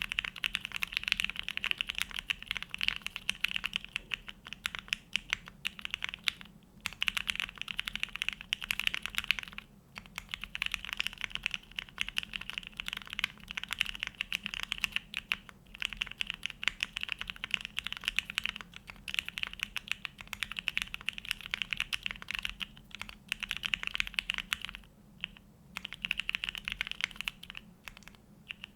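Continuous fast typing on a plateless, foamless Neo65 mechanical keyboard with hand-lubed Gateron Box Ink Black V2 linear switches and ABS JTK FC Classic and GMK keycaps: a dense stream of keystrokes, paused briefly a few times.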